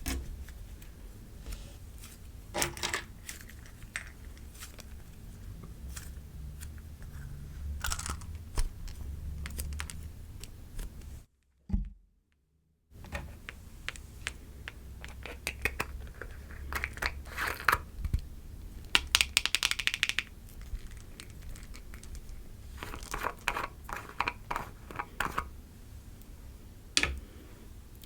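Slime being squished, poked and stretched by hand, giving clusters of sticky clicks and crackles. About eleven seconds in, the sound cuts out to dead silence for about a second and a half before the slime play resumes.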